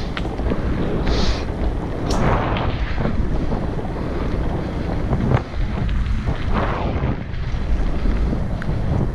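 Wind buffeting the microphone of a camera riding on a mountain bike at speed, over a steady rumble of tyres rolling on a gravel track. A few sharp clicks from the bike rattling.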